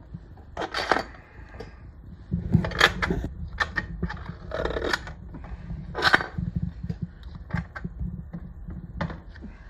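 Irregular clicks, knocks and scrapes from an industrial sewing machine head being handled and swung on its hinges between tilted-back and upright, with the loudest knocks about a second, three seconds and six seconds in.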